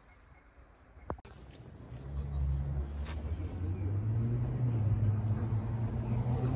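A single sharp click about a second in, then a motor vehicle engine running close by with a steady low rumble that grows louder from about two seconds in.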